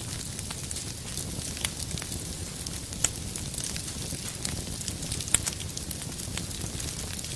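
Wood fire burning, with a steady low rumble and hiss and irregular sharp crackles and pops from the firewood, a louder pop about three seconds in and another past the five-second mark.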